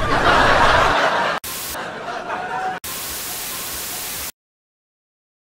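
Television static hiss in three stretches separated by sharp cuts, the first loudest, ending abruptly a little past four seconds in.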